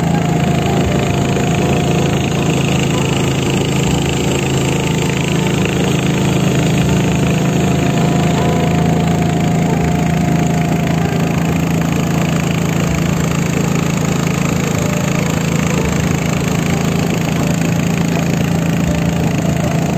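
Small boat's outboard engine running steadily at cruising speed, a constant drone with no change in pitch, as the boat travels along the river.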